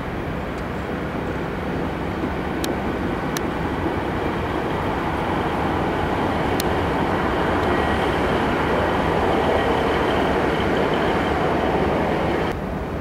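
Class 67 diesel locomotive approaching slowly at the head of a passenger train, its engine and the rumble of the train growing steadily louder, with three short clicks along the way; the sound drops suddenly near the end.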